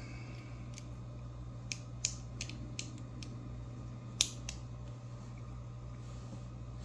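Small sharp clicks and taps from handling the parts and tools of a disassembled American 1100 padlock, about seven of them at uneven intervals, the loudest about four seconds in, over a steady low hum.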